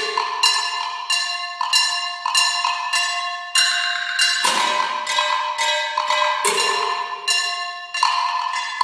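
Solo metal percussion played with sticks: ringing, bell-like metal strikes in an uneven rhythm, about one or two a second. Each strike rings on with several clear tones, and now and then a deeper thud sounds with it.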